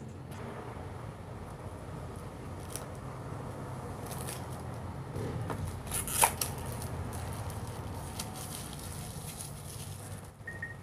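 Plastic shrink-wrap being peeled and torn off a small cardboard box, with scattered crinkles and a sharp crackle about six seconds in, over a steady low hum.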